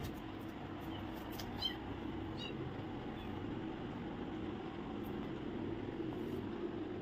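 Very young kitten giving a couple of short, high-pitched mews in the first few seconds, over a steady low background hum.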